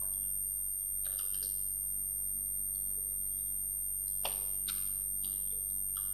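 Steady high-pitched electrical whine over a low mains hum, with a few faint keyboard clicks about a second in and again between four and five seconds in.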